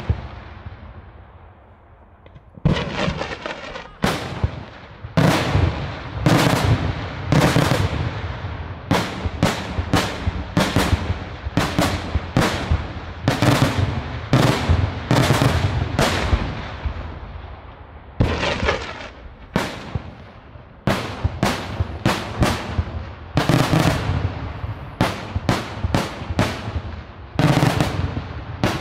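Daytime fireworks display: aerial shells bursting in quick volleys of loud bangs, often several a second, each trailing off in an echo. A short lull about half a second in, then the bangs run on with hardly a break.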